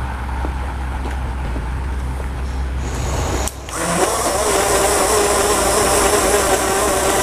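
A steady low hum, then about three and a half seconds in a portable blender's small electric motor switches on, spins up briefly and runs at a steady high whine with a hiss of blending.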